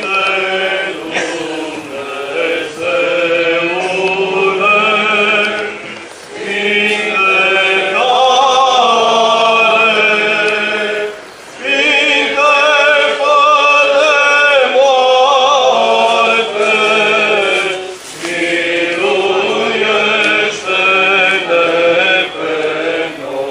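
Orthodox church chant: voices singing slow liturgical phrases, each several seconds long, with brief breaks between them.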